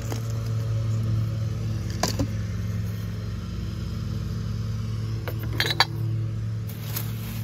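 Lawn mower engine running steadily, with a few sharp clicks and knocks of objects being handled in a cardboard box: one about two seconds in and a cluster, the loudest, about three-quarters of the way through.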